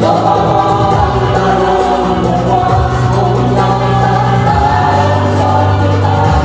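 Amplified song: women singing into microphones over backing music with long held bass notes.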